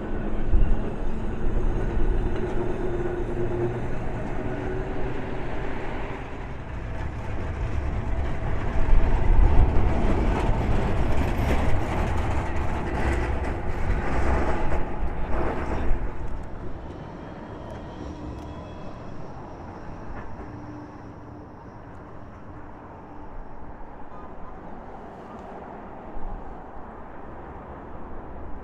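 Heritage tram running past on the tramway, loudest in the middle and dropping away sharply about two-thirds through, with wind buffeting the microphone.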